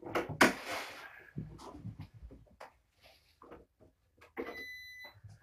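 A string of light knocks and rustles, the loudest a clatter about half a second in, then a steady, high electronic beep lasting about a second near the end.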